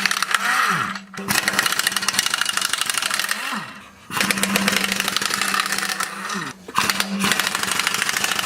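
Pneumatic impact wrench hammering in several bursts, winding down in pitch each time the trigger is let go.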